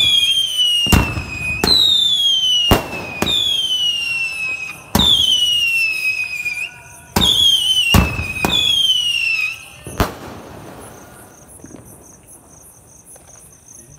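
A multi-shot whistling firework cake firing in rapid succession. Each shot goes off with a sharp bang and a shrill whistle that falls in pitch over about a second and a half, about six shots in all. A last bang comes about ten seconds in, and then the firing stops.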